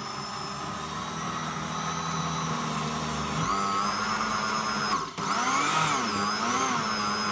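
Countertop electric blender puréeing cooked pumpkin soup, its motor running steadily and growing a little louder. About five seconds in it cuts out for a moment and starts again, its pitch then wavering.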